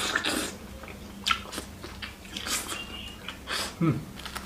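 A person biting into and chewing crispy batter-fried chicken, close up. The crunchy coating gives a series of irregular crackling crunches.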